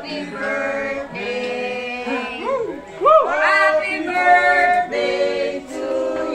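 Music with singing voices: held sung notes and sweeping slides in pitch, more than one voice at a time.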